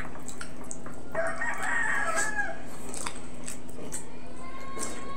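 A rooster crowing once about a second in, a call lasting about a second and a half, with a fainter long drawn-out call near the end.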